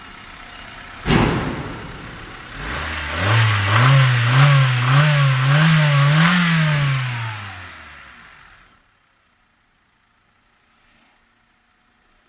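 Honda D16A 1.6-litre four-cylinder petrol engine idling quietly, with one sharp knock about a second in, then revved up several times in quick rises and falls at mid revs before dropping back and going quiet, as in a running test of a used engine.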